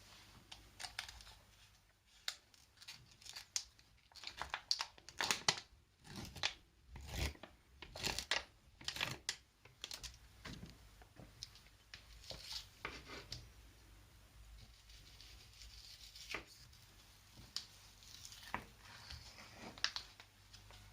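Irregular crinkling, rustling and tearing noises, as of something being handled, busiest in the first half and thinning out later.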